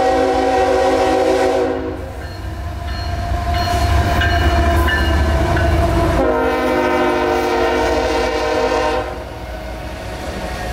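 A CSX diesel locomotive leading a freight train sounds its multi-chime air horn in two long blasts, one fading out about two seconds in and another from about six to nine seconds. Between and after the blasts, the locomotive's engine and the passing rail cars make a heavy low rumble that is loudest as the locomotive goes by.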